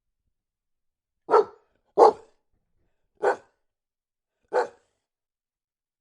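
A dog barking four times, single short barks about a second apart, the second one the loudest.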